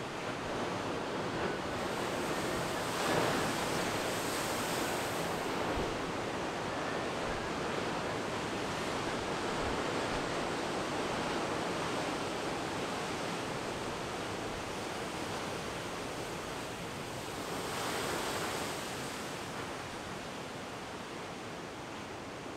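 Heavy storm surf from 20-foot seas: big waves breaking and crashing against rocks, a continuous rush of water that swells louder about three seconds in and again around eighteen seconds.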